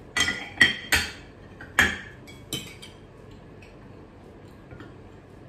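Glass bowls, a china plate and a metal spoon clinking together as dishes are handled, about five sharp clinks with a short ring in the first three seconds.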